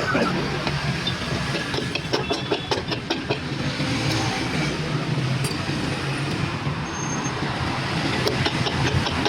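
A steady low engine hum runs throughout, with scattered metallic clicks and taps over it.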